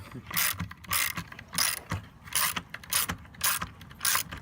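Rhythmic scraping strokes, about two a second, each a short harsh rasp with quiet gaps between: steady, repeated back-and-forth work on a hard material.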